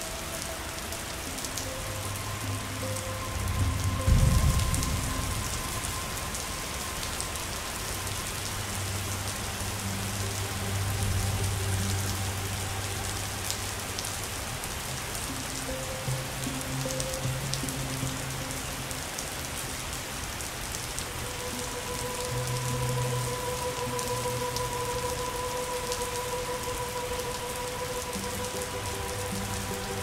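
Steady heavy rain pattering, with soft music of long held notes faintly underneath. A brief low rumble about four seconds in is the loudest moment.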